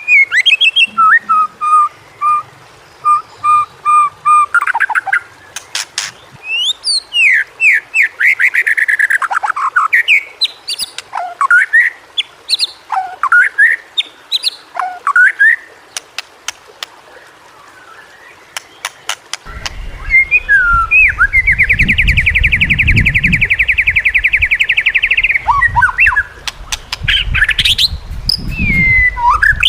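White-rumped shama singing: a varied run of clear whistles, sweeping notes and short phrases, with a fast, even buzzy trill held for about four seconds about two-thirds through. A low rumble of background noise comes in abruptly just before the trill.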